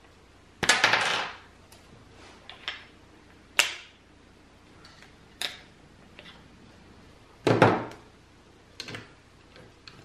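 Clicks and knocks of a wooden quick-release plate being handled and snapped into a plastic tripod head's clamp. The loudest are a short clattering burst just under a second in and another about seven and a half seconds in, with single sharp clicks between.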